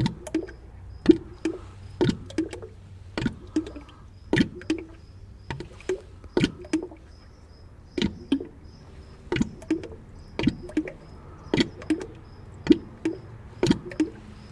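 Oil glugging out of the drain hole of a 1975 Ford 550 backhoe into a drain pan, coming in quick gulps, mostly in pairs about once a second, as air gulps back in past the heavy flow.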